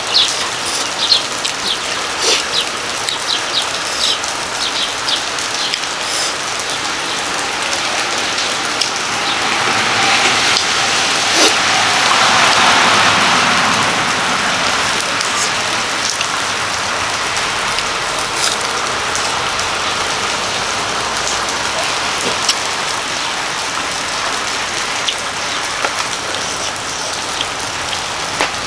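Rain falling steadily, a continuous hiss with scattered sharp clicks of drops, growing a little louder for a few seconds near the middle.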